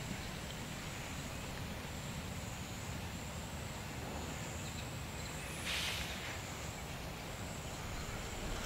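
Outdoor ambience: a low steady rumble of wind with a thin high-pitched whine throughout, and one brief rustle just under six seconds in.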